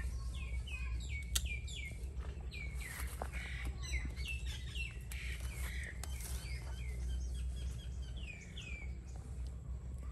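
A small bird chirping over and over in short falling notes, several a second, which stop about nine seconds in. A steady low rumble runs underneath.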